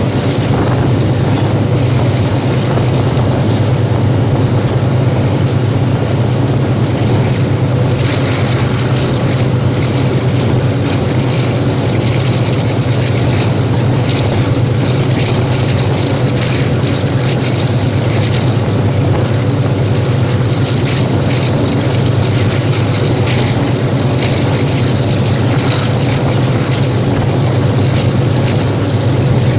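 Diesel locomotive engine running steadily under heavy load as a banker pushing a passenger train up a steep gradient, with a deep, even hum and a faint steady whine over it.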